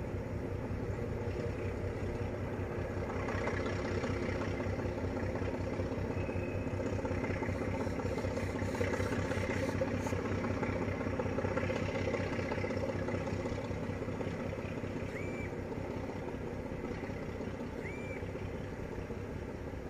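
Diesel locomotive engine running steadily, a low drone with a steady hum that grows a little louder midway and eases off again.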